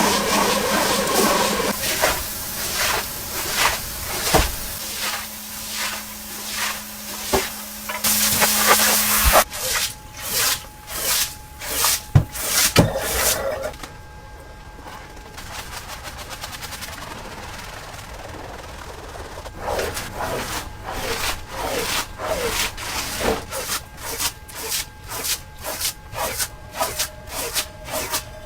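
A dirty carpet being scrubbed in quick repeated rubbing strokes, with a burst of spray hiss about eight seconds in; the strokes ease off for a few seconds midway, then pick up again.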